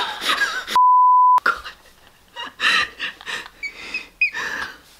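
A censor bleep: one steady high beep, about half a second long, dubbed over a word, with the other sound cut out beneath it. After it comes soft giggling and laughter.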